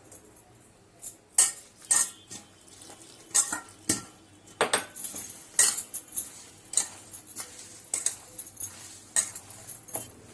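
Irregular clinks and scrapes of mixing flour with chopped onion and spices in a metal bowl, with a few sharper knocks against the bowl.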